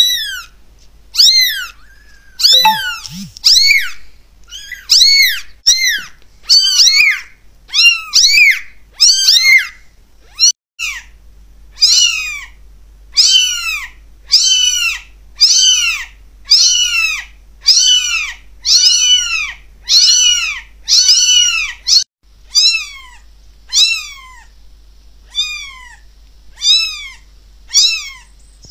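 Very young kittens meowing over and over: short, high-pitched calls about once a second, each rising and then falling in pitch.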